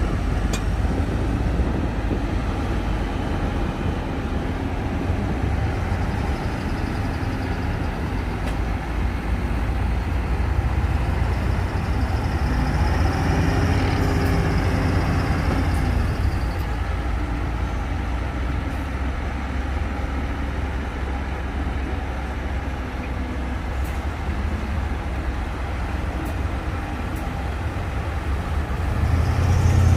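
Diesel engine of heavy earthmoving machinery running steadily with a deep rumble. It revs up about midway and again near the end, with a few faint sharp clicks.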